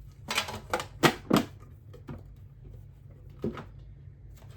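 Toys being handled in a cardboard shoebox: a quick run of sharp plastic clicks and clacks, then two more single knocks.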